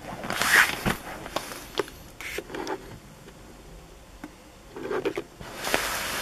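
Plastic wrapping of a fireworks pack crinkling as it is handled, in two loud rustling bursts, one about half a second in and one near the end, with scattered crackles between.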